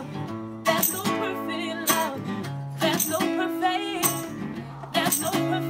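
Acoustic guitar strummed in a steady rhythm, with sharp strokes about once a second and chords ringing between them, under a wavering sung vocal line.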